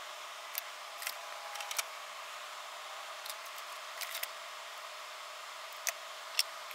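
Small sharp clicks and taps of hand tools and parts being handled on a workbench, scattered irregularly, the loudest near the end, over a steady faint hiss.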